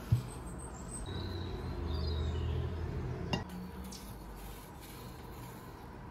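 Kitchenware being handled: a knock just after the start, a low rumble, then a sharp clink about three and a half seconds in.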